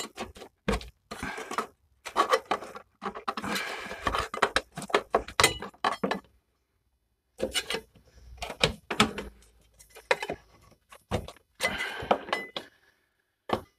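Sound deadening being scraped and chipped off a Lada 2101's floor with a metal tool: irregular clinks, knocks and short scrapes, with a pause of about a second just past halfway.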